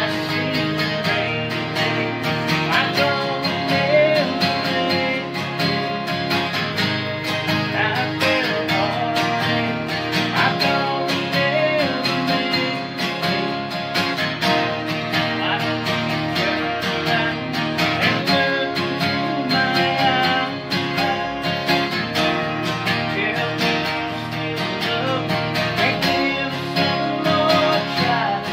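Two acoustic guitars playing a country song together, strummed chords over a steady rhythm.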